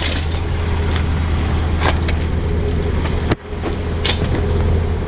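Tow truck engine idling with a steady low hum, while a single sharp knock sounds about three seconds in.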